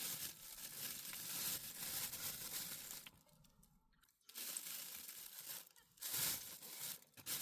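Rustling of something being handled, in three stretches with short pauses between them.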